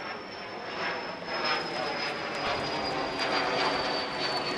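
Steady drone of a passing engine, with a high whine slowly falling in pitch, over the turning of a hand-cranked meat grinder grinding iguana meat.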